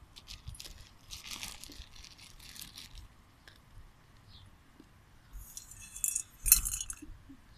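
Hard, half-popped popcorn kernels clicking and rattling against a stainless steel bowl as it is handled. Near the end comes a louder scrape with a sharp knock as a hand moves the bowl.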